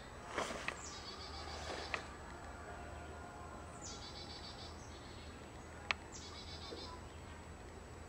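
Outdoor ambience with a repeated high, buzzy animal call, each about a second long and opening with a short downward sweep, coming every couple of seconds. A few sharp clicks stand out, the loudest about six seconds in.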